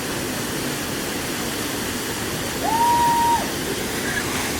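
Waterfall rushing steadily. About three seconds in, a single held high note lasting under a second sounds over it.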